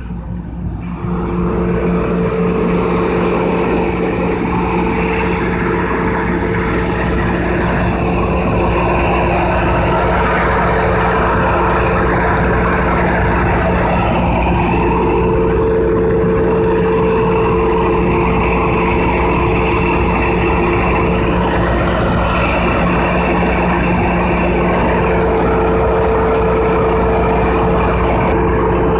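Large 3500 kVA generator set running under a load test, loud and steady with a constant hum over dense engine noise. It grows louder about a second in, then holds steady.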